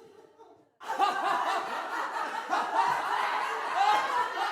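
A group of people laughing together, many voices overlapping. It cuts in abruptly about a second in, after a brief stretch of faint laughter.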